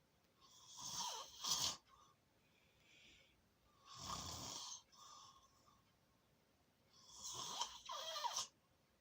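Snoring: three snores about three seconds apart, each lasting a second or so.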